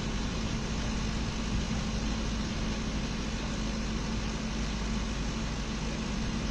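Large oil-field flare burning associated gas: a steady, even rushing noise with a low steady hum through it.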